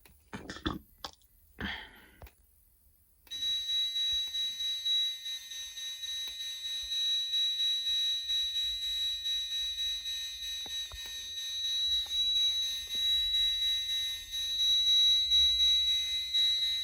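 A few short clicks, then, about three seconds in, the Silent Knight 5808 fire alarm panel's built-in piezo sounder comes on with a steady high-pitched tone. It is the panel sounding in alarm for a fire drill.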